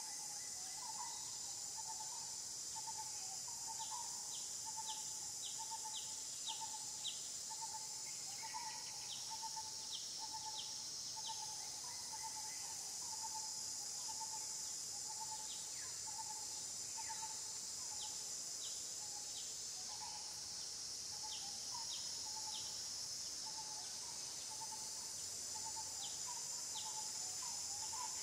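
Outdoor insect chorus: a steady high-pitched buzz, with a short call repeated about twice a second and scattered short high chirps over it.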